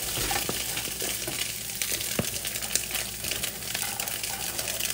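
Garlic, egg and crab sizzling steadily in a hot wok, with scattered clicks and light taps. Near the end cold cooked rice is tipped into the wok from a plastic container.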